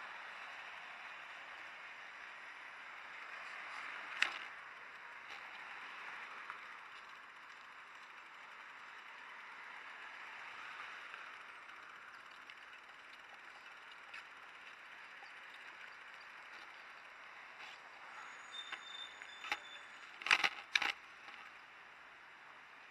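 Steady hiss of city street traffic and road noise, with a single sharp knock about four seconds in and a quick cluster of sharp knocks near the end, the loudest sounds.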